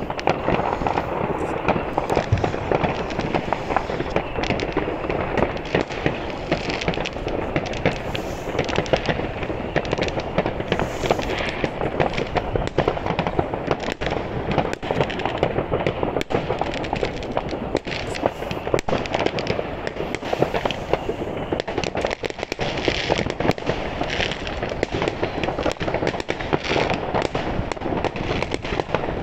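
Many fireworks and firecrackers going off at once: a dense, unbroken crackle of bangs with no pauses.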